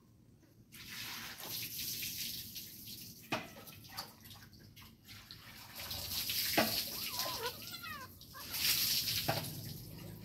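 A litter of kittens suckling at their mother cat, a busy wet smacking and slurping with many small clicks. A brief squeaky call comes about seven seconds in.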